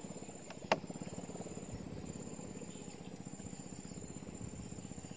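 Insects calling in a fast, even pulse, with a single sharp click about three-quarters of a second in.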